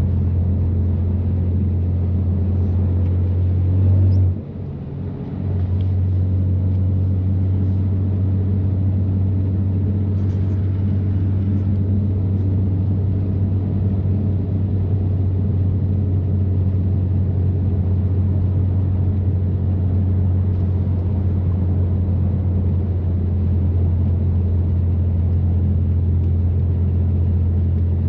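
BMW F80 M3's twin-turbo inline-six, fitted with catless downpipes and an always-open valved exhaust, droning steadily at highway cruise. About four seconds in the drone swells briefly, then drops away for about a second before it comes back steady.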